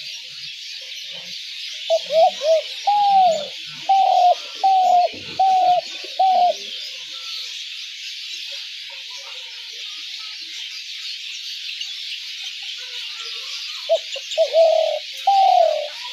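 Spotted dove calling: a run of about eight short arched coos, then another short cooing phrase near the end, over a steady high hiss.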